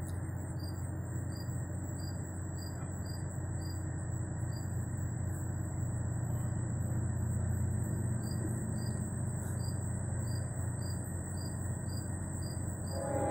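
Crickets chirping in an even rhythm, about one and a half chirps a second, over a steady high insect whine and a low distant rumble that swells slightly midway. Just at the end, a louder horn chord begins to sound.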